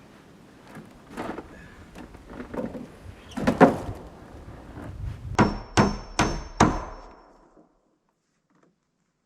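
Hammer blows on wood, irregular at first, then four quick hard blows about two a second. The sound cuts off abruptly near the end.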